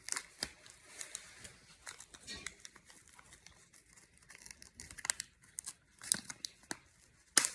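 Scattered crinkles and sharp crackles of a Pop Rocks candy packet being handled, with a louder crackle near the end.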